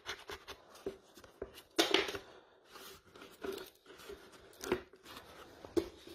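Hand scraper stripping old paint from a plastic scooter fairing panel: a run of irregular short scrapes and crackles as the paint chips and flakes off.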